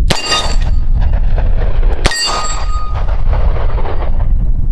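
Two revolver shots about two seconds apart from a Taurus 605 fired double action, a .38 Special +P round and then a standard .38 Special. Each shot is followed by the ringing of a struck AR-500 steel plate.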